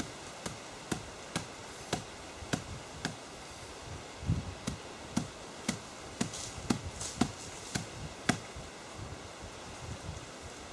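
A knife chopping into a young green coconut to open it: sharp, regular strikes about two a second, stopping about eight seconds in.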